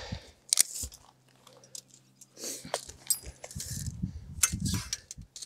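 Handling noise from a tape measure being worked along a solar module's frame: a string of irregular clicks, scrapes and rustles, with denser, lower scuffling from about three and a half seconds in.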